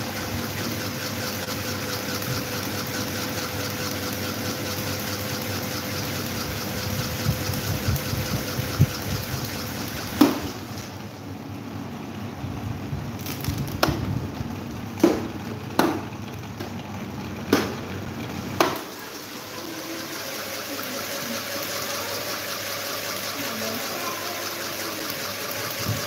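Several electric table and stand fans running, giving a steady rush of moving air over a faint motor hum. From about ten seconds in comes a run of about seven sharp knocks, and the air noise drops lower at times.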